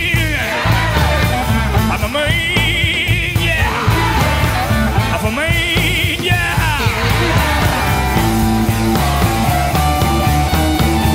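Electric blues band recording, an instrumental stretch with a steady beat of drums and bass. A wavering, bending high lead phrase comes back three times in much the same shape.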